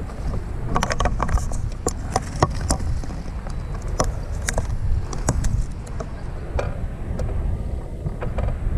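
A hooked bass thrashing and splashing at the water's surface beside the boat, heard as irregular sharp splashes and clicks over a steady low rumble of wind on the microphone.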